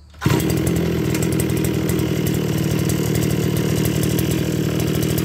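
Kawasaki TA33 brush cutter's 33cc two-stroke engine being restarted: it catches about a quarter second in and then runs at a steady speed.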